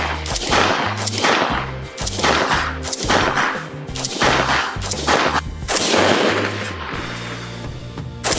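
AK-pattern rifle firing a steady string of single shots, roughly one every three-quarters of a second, over background music with a bass line.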